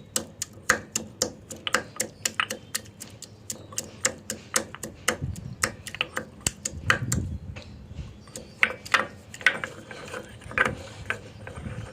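Stone pestle knocking against a small stone grinder as herb leaves and peppercorns are pounded into a juicy paste. Quick sharp clicks come about three to four a second, with duller thumps around the middle.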